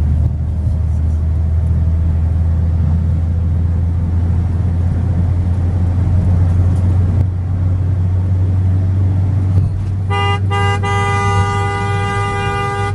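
Steady low drone of a vehicle's engine and road noise heard from inside the cabin on a highway. About ten seconds in, a vehicle horn sounds: a short blast, then a long one held to the end.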